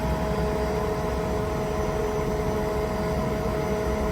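Kaeser ASD 50 T SFC 25 kW inverter-driven rotary screw air compressor running unloaded: a steady, pretty quiet hum with two fixed tones over a low rumble.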